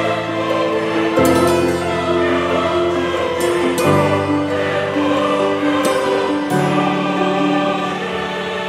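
Background music: long held chords that change about every two to three seconds.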